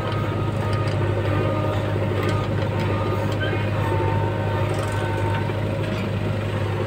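JCB 3DX backhoe loader's diesel engine running steadily with a low drone as the backhoe digs soil and swings it over to the trolley.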